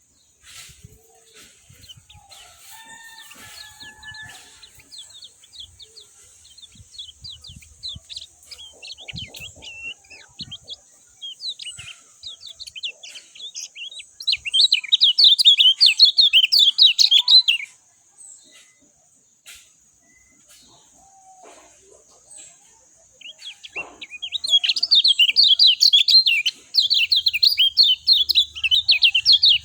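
Kecial kuning (white-eye) singing a fast, chattering twitter of high chirps. Softer scattered notes come first, then two loud dense bursts of about three and five seconds, the first around the middle and the second near the end. A steady faint high hiss runs underneath.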